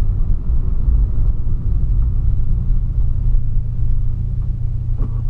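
Cabin noise of a VW Polo sedan driving on a wet road: a steady low engine and road drone with tyre hiss from the wet pavement.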